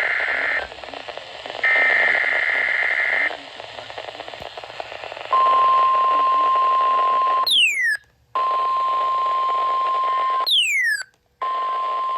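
Emergency Alert System SAME header data bursts, two short buzzy digital squawks, over weather-radio hiss. They are followed by the weather radio's 1050 Hz warning alert tone, a steady high beep heard three times, each about two seconds long and ending in a quick falling chirp and a short gap. Together they signal the start of a new severe thunderstorm warning.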